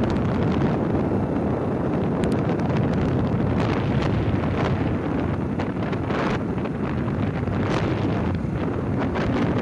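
Wind rushing over a phone microphone on a moving motorbike: steady, loud wind noise with a few brief rustles.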